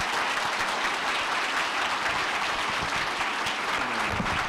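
Audience applauding steadily in a hall as a talk ends.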